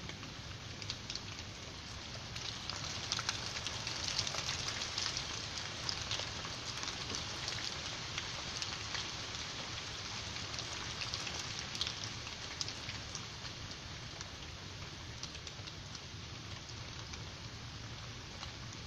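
Steady rain falling, with scattered sharp ticks of single drops; it grows a little heavier a few seconds in and then eases back.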